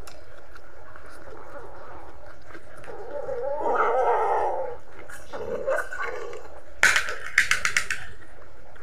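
A dog barking: a rough burst of barks about three to five seconds in, then a quick run of six or seven sharp yaps near the end.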